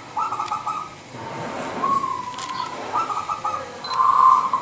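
Zebra dove (perkutut) cooing its song over and over: phrases of quick stuttering notes alternating with longer held notes, about four phrases in all.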